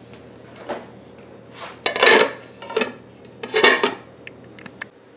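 Glass lid being set onto a slow cooker's crock and shifted into place: a few scraping clatters of glass on the pot rim, the loudest about two seconds in and again near four seconds, then a few light ticks.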